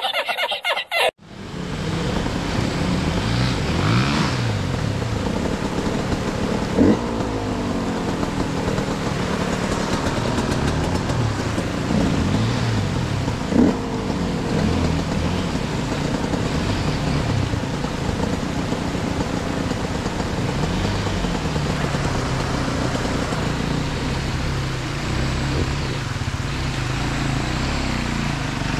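A second of laughter cuts off, then enduro dirt bike engines run and rev up and down over and over. Two sharp knocks stand out, about a third and halfway through.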